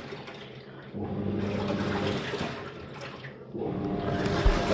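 Living & Co 5.5 kg top-loading washing machine agitating mid-wash, its pulsator churning the water and clothes. The motor hum and water sloshing come in strokes of about two seconds, dropping briefly about a second in and again past three seconds.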